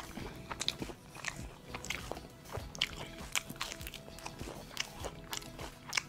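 Crispy KFC fried chicken being bitten and chewed: irregular crunches of the breaded crust, several a second.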